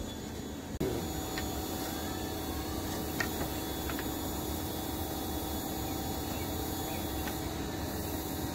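Steady background hum with a few faint, light ticks scattered through it.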